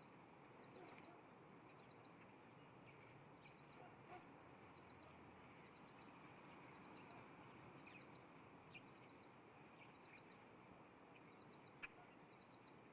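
Faint, high bird calls outdoors, a short chirp of about three quick notes repeated roughly once a second, over a steady hiss, with a few brief clicks.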